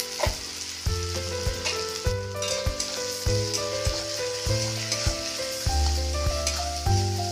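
Chopped vegetables with turmeric sizzling in oil and butter in a tawa, stirred with a spatula that knocks and scrapes against the pan. Background music with a stepping melody and bass plays throughout.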